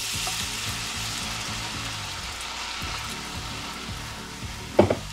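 Beer sizzling and foaming in a hot enamelled pan of melted butter and garlic as a wooden spoon stirs it. A short, loud knock comes near the end.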